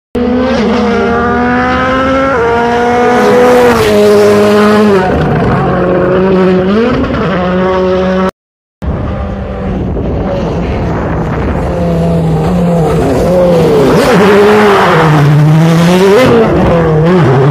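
Ford Fiesta WRC 2017 rally car's 1.6-litre turbocharged four-cylinder engine at full throttle on gravel, its pitch climbing and dropping back at each upshift. The sound breaks off for a moment, then the car comes close, lifts off and slides through a corner, and accelerates hard past with gravel spraying.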